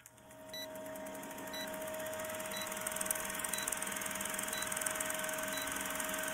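Old film-projector countdown sound effect: a fast steady clatter of the projector with film hiss and a steady tone, and a short high beep about once a second as the leader counts down. It fades in over the first couple of seconds.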